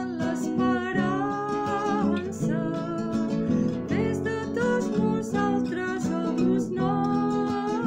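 A liturgical hymn in Catalan sung over a strummed acoustic guitar.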